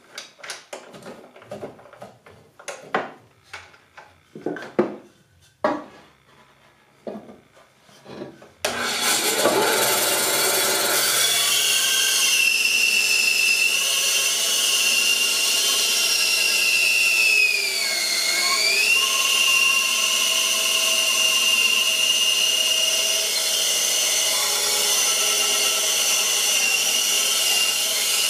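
Clicks and taps from hand-adjusting the bandsaw's blade guide, then a Delta 9-inch benchtop bandsaw switches on suddenly about nine seconds in and runs with a steady high whine as a 2x4 is fed into the blade. The whine dips in pitch briefly and recovers about two-thirds of the way in.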